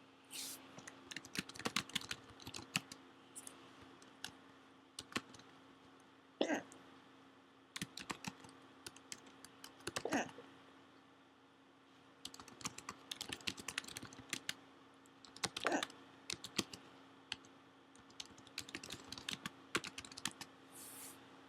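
A woman's hiccups, about three of them several seconds apart, between clusters of quick light clicks, over a steady faint hum.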